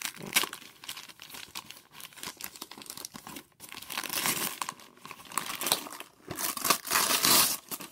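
Wrapping paper being torn and crumpled by hand as a present is unwrapped: a run of crackling rips, louder about four seconds in and again near the end.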